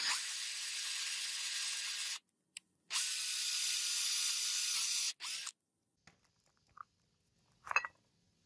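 Drill press with a twist drill boring through a steel cleaver blank: a harsh hissing cutting noise in two long stretches and a short one, each cutting off abruptly. A light knock near the end.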